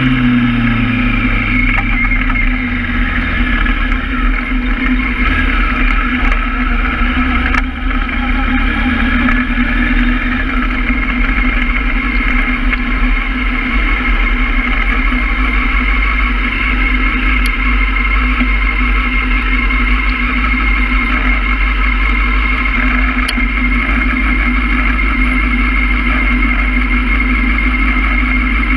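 Honda Hornet motorcycle engine dropping in revs as the bike slows near the start, then running steadily at low revs, near idle, in stop-and-go traffic.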